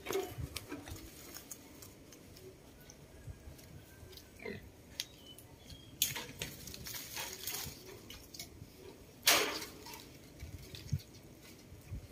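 Leaves and twigs rustling in short scattered bursts as a monkey moves through the branches of a leafy fruit tree, with a sharper rustle about six seconds in and the loudest one about nine seconds in.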